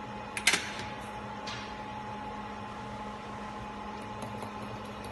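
Steady electrical hum of bench equipment, with two steady tones over a low background. About half a second in comes a sharp clack of a hard object knocking, and a fainter tap follows a second later.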